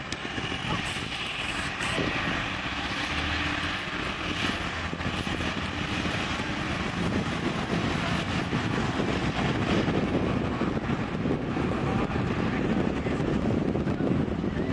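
Fire ladder truck's engine and road noise as it drives past, a steady rumble that grows stronger in the second half.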